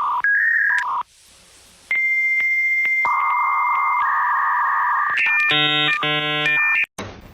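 Electronic beeps and held tones at several fixed pitches, switching every second or so, ending in a buzzier many-toned sound near the end.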